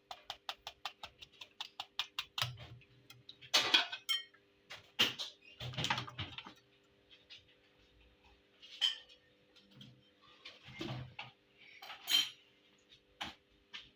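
Kitchen utensils and pots being handled: a quick, even run of light ticks for about two seconds, then scattered clinks and knocks, over a faint steady hum.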